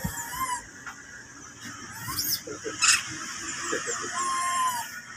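Scattered animal calls: high chirps and squeaks, a sharp click about three seconds in, and a short, clear whistle-like call about four seconds in.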